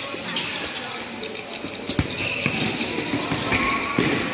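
Futsal ball being kicked and bouncing on the court, with a sharp thud about two seconds in and another near the end, over steady background noise.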